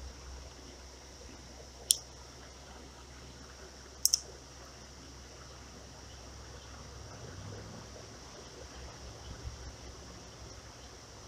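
A sharp click about two seconds in and a quick double click about four seconds in, from handling a fishing rod and reel, over a faint steady background of creek water and air.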